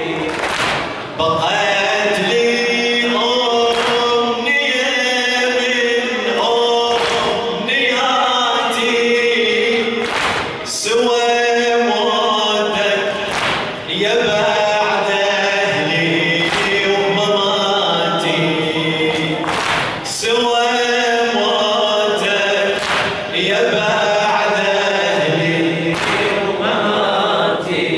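A male reciter chanting a Shia Muharram lament (latmiya) into a microphone, with a chorus of men's voices. Sharp thumps come regularly every couple of seconds, in time with the chant: the mourners' chest beating (latm).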